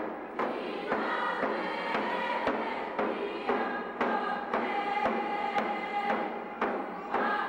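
Background music with a steady drum beat, about two strikes a second, under long held notes.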